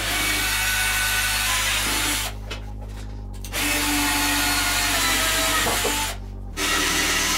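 Cordless drill boring through steel, running in three bursts with short pauses about two seconds in and about six seconds in.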